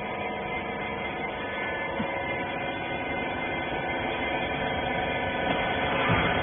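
Hydraulic rag baler's power unit, its electric motor and hydraulic pump, running with a steady hum that grows slightly louder toward the end.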